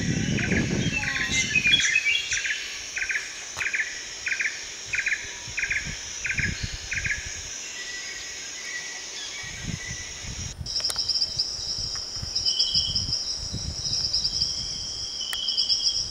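Outdoor birdsong: a single chirp repeated about one and a half times a second for the first seven seconds or so. About ten and a half seconds in the sound changes abruptly to a steady high insect trill, with short bird trills over it and low wind rumbles on the microphone.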